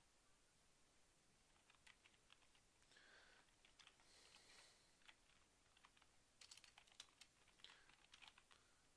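Faint computer keyboard typing: irregular keystrokes that begin about a second and a half in and bunch together near the end.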